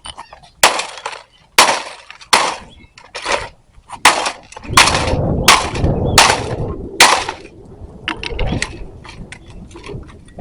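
Sledgehammer blows smashing a plastic coffee maker: about nine sharp cracking strikes, a little under a second apart, with a rattling crunch of broken pieces between the later blows.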